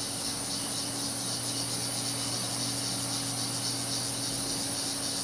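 Insects chirring steadily in the bush, with a faint pulsing to the high-pitched drone, over a low steady hum.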